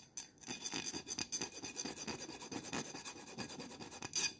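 A small file rasping in rapid short strokes over the edge of a metal beer-bottle cap, taking off burrs around drilled holes, with a louder stroke near the end.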